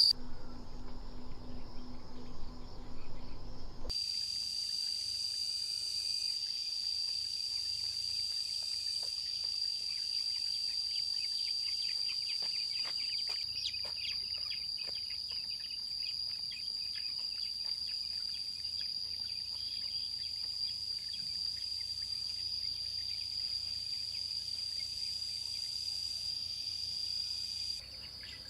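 Insect chorus, a steady high-pitched drone, with a scatter of faint ticks in the middle. In the first few seconds a low hum is heard instead.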